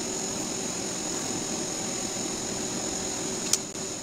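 Steady machine hum with a thin high whine held throughout. A single sharp click comes shortly before the end, after which the hum drops a little.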